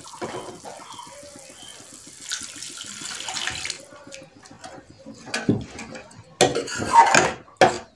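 Water poured into a steel kadai of frying masala for nearly four seconds, stopping abruptly, then a metal spoon stirring and scraping against the pan, with a few louder scrapes near the end.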